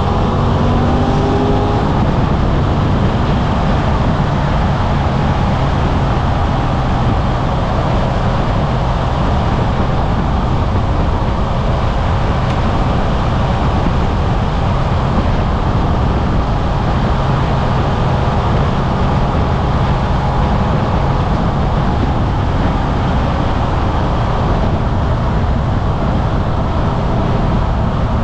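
Suzuki V-Strom 800RE's 776 cc parallel-twin engine running under way at a steady cruise. Its revs rise over the first couple of seconds, then hold even.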